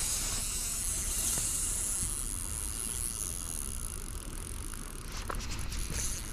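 Steady outdoor rumble and hiss on an action-camera microphone, then a few sharp clicks near the end as a hand takes hold of the spinning reel to start the retrieve.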